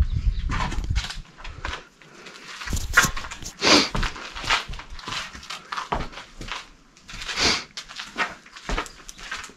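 Footsteps crunching and scuffing on gravel and loose rubble along a concrete bunker passage, in uneven steps with a few louder scuffs. A low rumble dies away in the first second.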